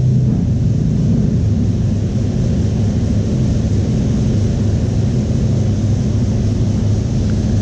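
Keeway K-Light 202 motorcycle engine running on a chassis dynamometer, a loud, steady drone.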